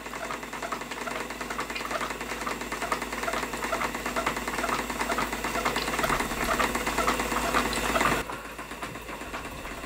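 Stuart Turner 10H single-cylinder model steam engine running fast, a rapid mechanical beat with steam hiss, belt-driving a plastic beam-engine water pump. About eight seconds in the hiss drops away and it gets quieter as the steam regulator is turned down.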